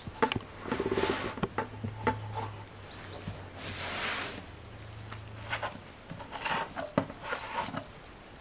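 Handling noises from a large glass jar with a plastic screw lid: scattered clicks and knocks, with two short rubbing sounds about a second in and about four seconds in.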